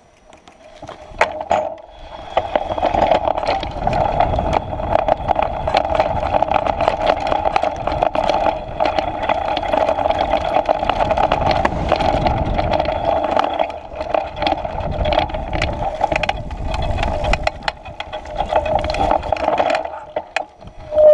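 Mountain bike riding down a dirt trail: tyres running over dirt and stones, with the bike rattling and knocking over bumps and a steady buzz throughout. It starts quietly and picks up about two seconds in as the bike gathers speed.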